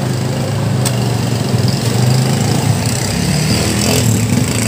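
A motor running steadily with a low drone, and a single light click about a second in.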